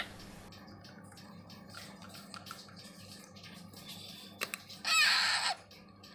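Baby parrot giving one loud, harsh squawk about five seconds in, wavering in pitch for about half a second, after a few faint clicks.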